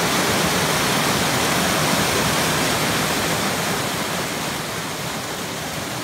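Steady rushing of small waterfalls and a rocky moorland stream, a dense, even roar of falling and tumbling water that eases slightly in level in the second half.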